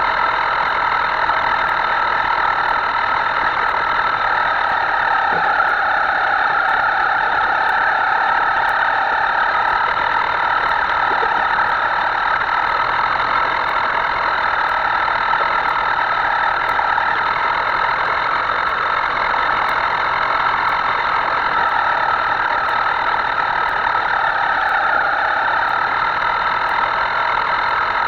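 Electric motor of a Himoto radio-controlled boat whining steadily under throttle, its pitch easing off and rising again slightly a couple of times.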